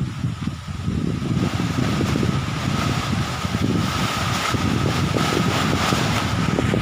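Strong wind gusting over the microphone, growing louder about a second in, with a faint steady high-pitched tone underneath.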